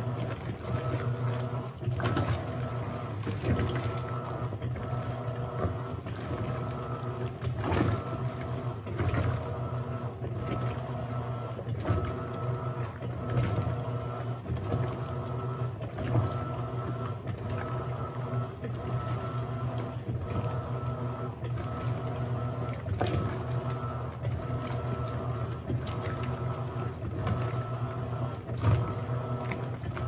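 Electrolux LAC17 top-loading washing machine agitating a load of jeans with its impeller: a steady low motor hum under irregular sloshing and splashing of water and clothes churning in the drum.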